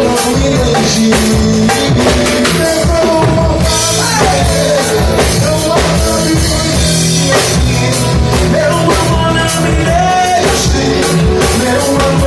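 Rock-style band music with a steady drum-kit beat, bass and a gliding melodic lead line.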